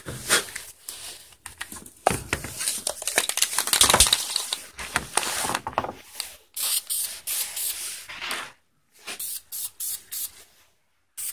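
Rubbing and scratching of an abrasive scrubbing pad on a small part, roughing it up so the paint sticks. Then, from about six seconds in, a spray can gives several short hissing bursts of aerosol paint.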